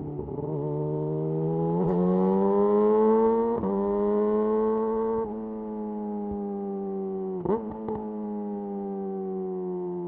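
Yamaha YZF R6 inline-four running through a de-catted Akrapovic slip-on exhaust, with revs climbing steadily under light throttle for about five seconds. The throttle then closes and the revs fall away slowly on the overrun, with a short rev blip about two-thirds of the way through.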